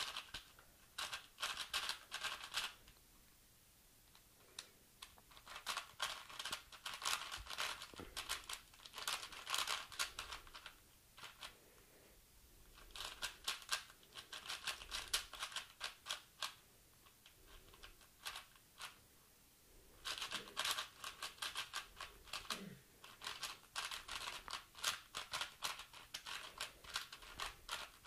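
A brand-new YJ Guansu 4x4 speedcube being turned by hand, its plastic layers clicking and clattering in quick bursts of turning with short pauses between them.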